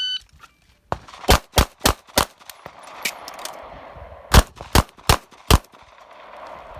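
A shot timer beeps once as the start signal. About a second later a Glock 17 Gen5 9mm pistol fires eight shots in two quick strings of four, with a pause of about two seconds between them.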